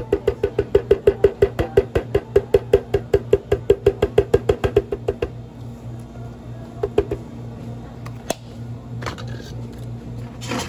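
Blender jar being shaken and tapped to empty the last of a thick smoothie into a plastic cup: rapid, even knocks, about six a second, that stop about five seconds in. A low steady hum runs underneath.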